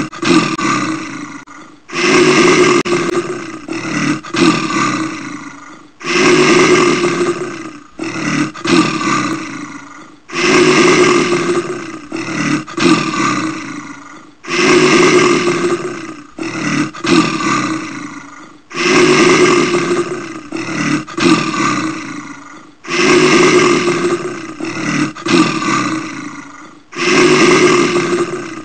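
Brown bear roaring: a long roar followed by two or three shorter ones, the same sequence repeating about every four seconds like a loop.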